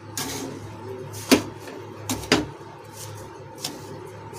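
A metal spoon scraping through a crumbly dough in a non-stick kadhai, with a few sharp knocks of the spoon against the pan as sugar is stirred in.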